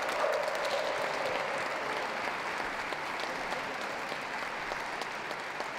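Audience applauding, a steady patter of many hands clapping that slowly fades a little.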